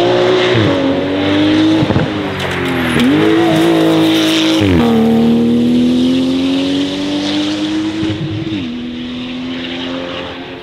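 Porsche 911 GT2 RS Clubsport 25's 3.8-litre twin-turbo flat-six under hard acceleration. Its note climbs and drops sharply at each upshift, several times, then grows fainter as the car pulls away.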